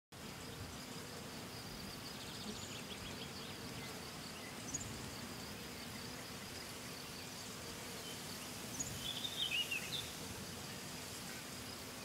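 Faint meadow ambience: a steady insect buzz with a few short bird chirps, and a brief burst of bird twittering about nine seconds in.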